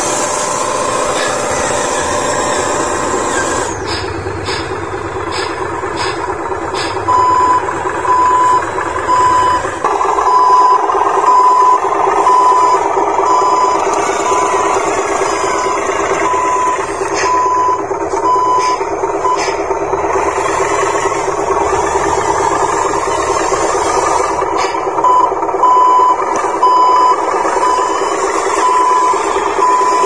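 Reversing beeper on the RC dump trucks, a single high beep repeating evenly about once a second, over a steady engine-like drone. The beeping starts about a quarter of the way in, pauses for a few seconds past the middle, then resumes. A few sharp clicks come before it starts.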